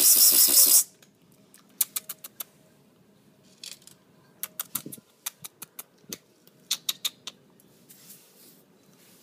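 A loud, rasping, pulsing noise for about the first second. Then cats crunching dry cat kibble: sharp clicks in quick clusters, with pauses between them.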